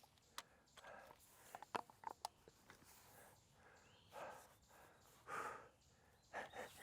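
Near silence with faint rustles and clicks, and two soft breaths about four and five seconds in.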